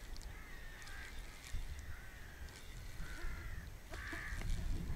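Birds calling over and over in short, rough calls, about one a second, with a low, gusty rumble of wind on the microphone underneath.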